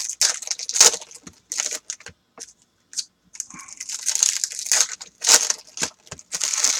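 Shiny wrapper of a Topps Chrome Mini trading-card pack being torn open and crinkled by hand, in irregular rustling bursts with a short lull in the middle.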